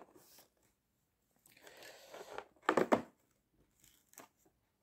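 A cardboard advent calendar door is torn open and a tube of body lotion is pulled out. There is a soft rustle, then two short, sharp tearing sounds just before three seconds in, and a faint click near the end.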